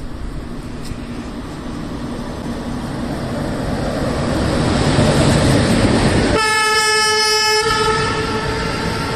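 An electric locomotive hauling a passenger train approaches and passes close by, its running noise growing louder, then one horn blast of about a second and a half some six seconds in, followed by the coaches rolling past.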